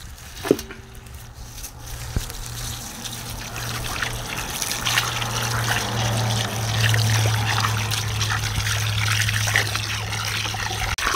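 Water running and splashing over pig's feet being rinsed, growing louder a few seconds in, over a steady low hum.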